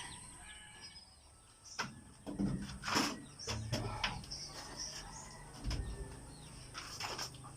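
Faint bird chirps, then irregular short knocks and rustles, some with a dull low thud, starting after about two seconds, over a faint steady high-pitched hiss.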